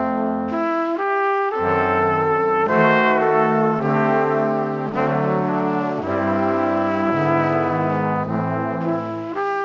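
Music: brass-sounding instruments playing sustained chords over a bass line, the harmony changing every second or so.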